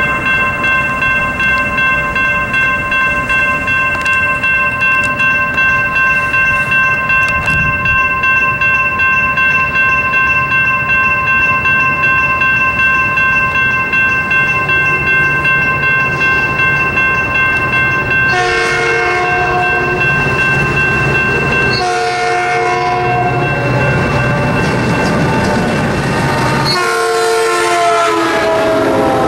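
Railroad crossing bell ringing in a steady, regular pulse. About 18 seconds in, the approaching Metrolink locomotive sounds its multi-note horn in three blasts, the first two long, the grade-crossing warning, as the train reaches the crossing.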